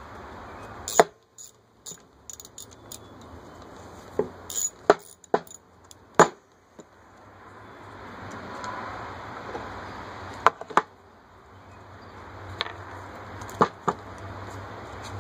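About a dozen scattered sharp metallic clinks and knocks from a ratchet and small loose bolts being handled while the solenoid is unbolted from a Delco starter motor.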